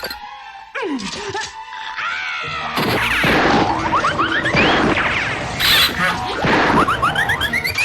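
A rapid string of cartoon sound effects: a falling whistle glide, then many quick rising whistle glides mixed with whacks and crashes over music.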